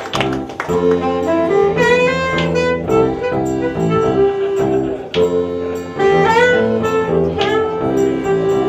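Live band playing an instrumental tune: saxophone melody over electric guitar and accordion, its notes swooping upward twice.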